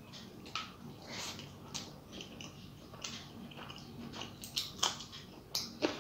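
Close eating sounds: wet chewing and irregular lip smacks and clicks from a mouthful of rice with fried greens, eaten by hand. Near the end, fingers mix rice on a steel plate. The sharpest smacks come about five seconds in and just before the end.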